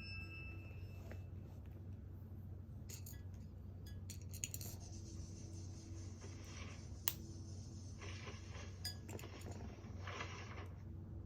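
Small hard plastic LEGO pieces being handled: scattered clicks and clinks with stretches of rattling and rummaging, the sharpest clicks about four and a half and seven seconds in, over a steady low hum.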